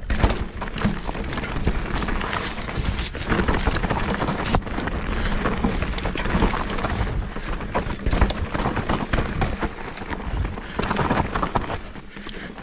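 Mountain bike ridden fast down a dirt singletrack: tyres rumbling over the trail and the bike rattling with a constant run of small knocks, with wind buffeting the microphone.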